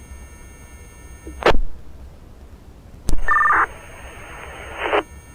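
Two-way fire radio channel between transmissions: a short loud squelch burst about a second and a half in, then a radio keys up with a click and a half-second warbling two-tone data burst, the push-to-talk ID sent ahead of a transmission. Open-channel hiss follows and closes with a squelch tail about five seconds in.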